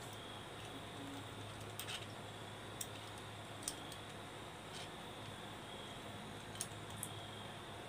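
Faint, scattered clicks and light knocks of a metal flaring tool's clamp bar and yoke being handled, about half a dozen in all, over a steady low hum.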